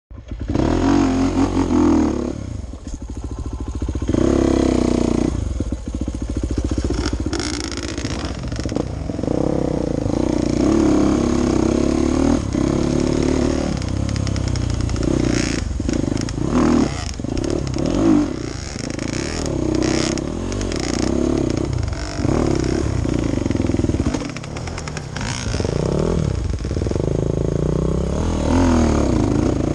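Enduro dirt bike engine heard from the rider's helmet, revving up and falling back over and over as the throttle is worked on a rough trail, with frequent short knocks and clatter.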